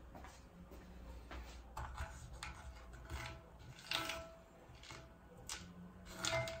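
A few light knocks and clicks from someone moving about and handling cookware at a table, with footsteps on a wooden floor. About four seconds in and again near the end, a knock rings briefly with a clear tone, like a metal pan or ice cube being struck.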